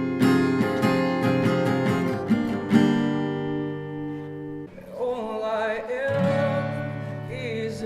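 Acoustic guitar strumming the closing chords of a song, the last chord ringing out for about two seconds. About five seconds in, new music begins with a wavering melody line over a low held tone.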